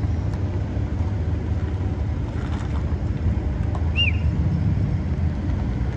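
Car engines running at low speed, a steady low rumble, as a car rolls slowly past close by.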